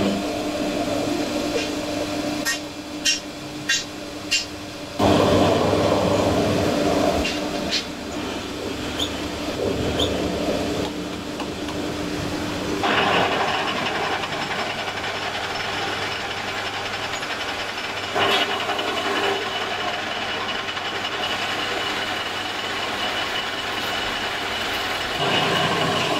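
Metal lathe running with a steady hum as it turns a steel gearbox shaft, a few sharp clicks about three seconds in and a louder, rougher stretch a couple of seconds later. About halfway through the hum gives way to a harsher, more even noise.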